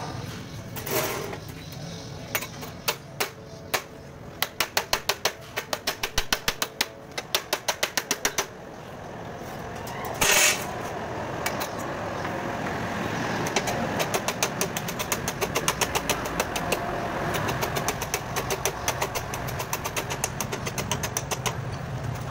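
A run of sharp knocks, about four a second, for several seconds, then a single loud burst, followed by a small engine running steadily with fast regular pulses that slowly grows louder.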